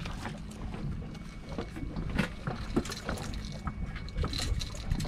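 Steady low hum and rumble aboard a fishing boat, with scattered light knocks and clicks on deck.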